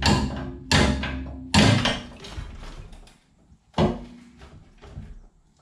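Heavy metal knocks and clanks as a rust-damaged rear strut and its suspension parts are forced loose from the wheel well: two loud knocks in the first two seconds, then a few quieter clanks near the end.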